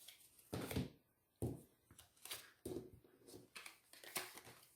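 Tarot cards being handled and laid down: several soft slaps and rustles, spaced out about a second apart.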